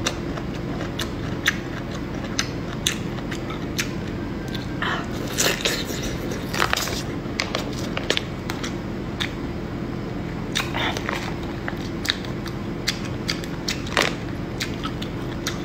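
Close-miked eating of a large cooked bamboo shoot: irregular bites, crunches and mouth clicks as it is chewed. A steady low hum runs underneath.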